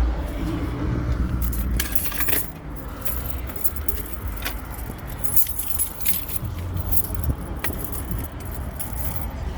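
Car keys jangling in short bursts over a steady low rumble.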